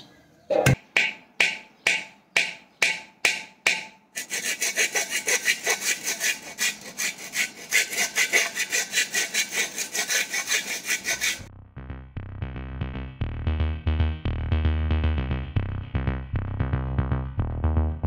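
A hand-held saw blade rasping back and forth across a terracotta clay pot, cutting into the fired clay. It starts with slow strokes about two a second, then speeds up to quick strokes. After about eleven seconds the sawing gives way to background music with a steady thumping beat.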